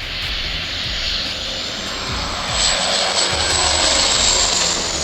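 Aircraft flying past: its engine noise swells louder in the second half, with a high thin whine that slides down in pitch near the end as it passes.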